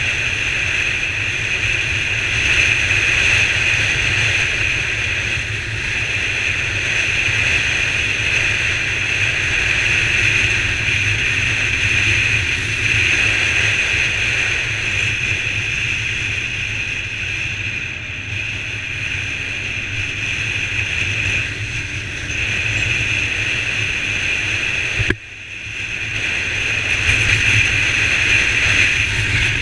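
Honda CBR125 single-cylinder motorcycle engine and wind rush heard while riding along, a steady noisy drone. Near the end the sound drops away suddenly for a moment, then builds back up over a couple of seconds.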